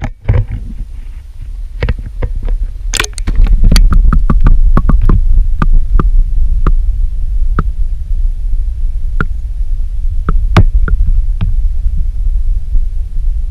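Wind buffeting a GoPro camera's microphone: a loud, fluctuating low rumble, with sharp irregular clicks and knocks that come thick about two to five seconds in and then more sparsely.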